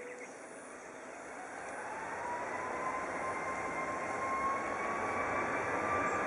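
The Rolls-Royce Trent 892 turbofan engines of a Boeing 777-200ER spooling up, typical of the start of a takeoff roll: a whine rising steadily in pitch over a rush of engine noise that grows louder throughout.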